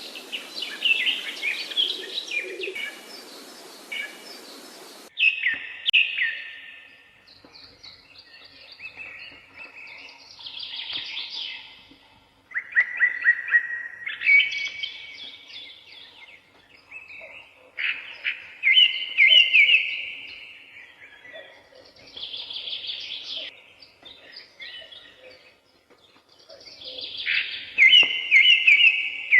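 Songbirds singing in a forest: phrases of quick repeated notes and short trills, a second or two each, come one after another with brief gaps and sometimes overlap. A steady background hiss sits under the song for about the first five seconds, then cuts off abruptly.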